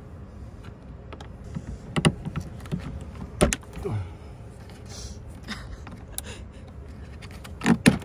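Turn latches and the plastic cover of a camper van's exterior refrigerator access panel being worked open by hand. There are a few sharp clicks and knocks, about two and three and a half seconds in and twice in quick succession near the end, over a low steady rumble.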